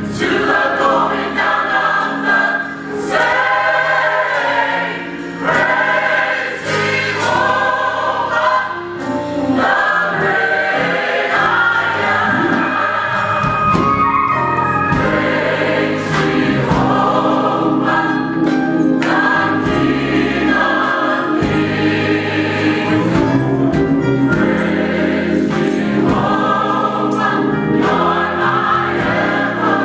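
Youth gospel choir singing in full voice over steady low accompanying notes.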